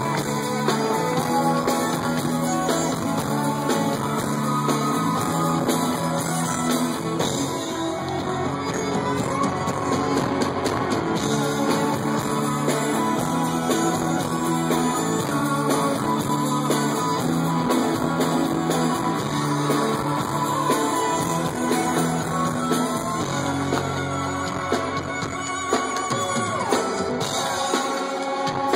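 Live rock band playing, electric guitars over bass and drums, heard from the audience through a phone's microphone.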